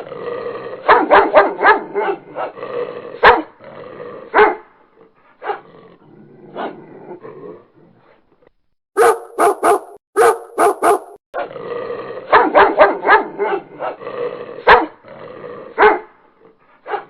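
Dog barking: quick runs of sharp barks with quieter stretches between, the same run of barks repeating about ten seconds later.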